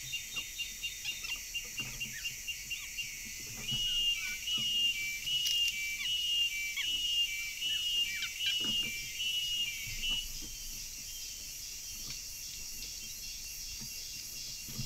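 A bird calling: a fast train of short high chirps, then from about four seconds in a whistled two-note phrase repeated roughly every 0.7 seconds, which stops near ten seconds. Soft rustles and light knocks in dry leaf litter sound underneath.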